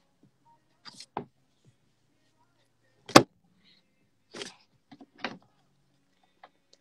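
A few scattered short clicks and brief rustling noises with quiet gaps between them, the loudest a sharp click about three seconds in, over a faint low hum.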